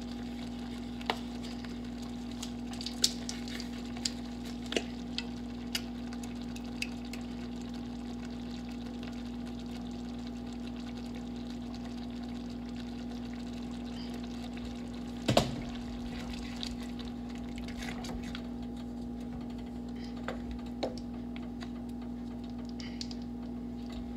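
Light clicks and taps from a yellow mustard squeeze bottle being opened and squeezed into a plastic measuring spoon, with one sharper clack about halfway through, over a steady low hum.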